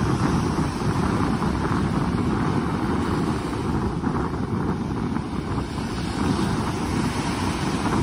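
Small ocean waves breaking and washing up a sandy beach, with wind buffeting the microphone in a steady low rumble.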